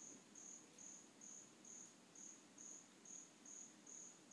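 Faint cricket chirping: a short high-pitched chirp repeated evenly about twice a second.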